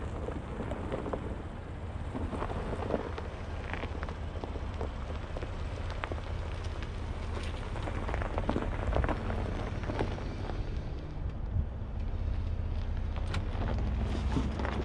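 2022 Chevy Colorado ZR2 crawling slowly off-road in four-wheel drive: a steady low rumble from the 3.6-litre V6 and drivetrain, with tyres crackling and popping over loose dirt and rock throughout.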